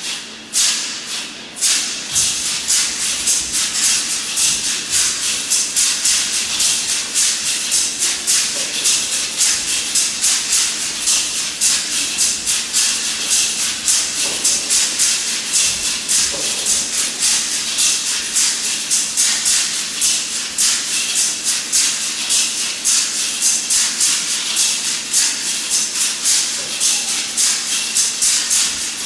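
Large audience applauding, clapping together in a steady rhythm.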